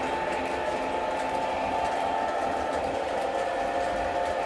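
O gauge model train running on the layout's metal track, a steady electric-motor whir with a constant humming tone.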